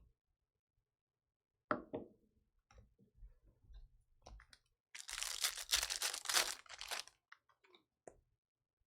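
A foil trading-card pack being torn open, its wrapper crackling densely for about two seconds past the middle, with a few sharp knocks and small clicks of cards being handled before it.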